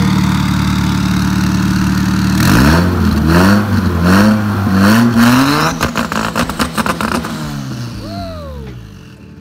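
Big-turbo Honda Civic EG engine idling, then revved in three or four quick rising blips about two and a half seconds in. It then sits on the two-step launch limiter, popping and crackling for about a second and a half, before the revs fall back.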